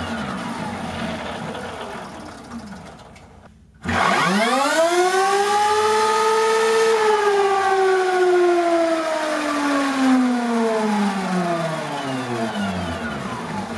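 Sur-Ron Storm Bee electric motorcycle spinning its rear wheel on a dyno roller: a high electric-motor and drivetrain whine. A falling whine fades out over the first few seconds, then about four seconds in the whine starts abruptly, shoots up in pitch, peaks, and slowly winds down toward the end.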